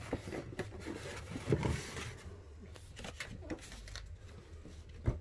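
Faint rustling and light taps of a cardboard shipping box and the blister-packed toy cars inside it being handled.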